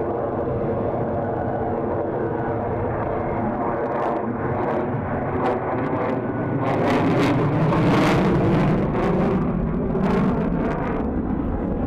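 Jet aircraft flying overhead, its steady engine noise swelling to its loudest about eight seconds in, with sharp crackles through the loudest part.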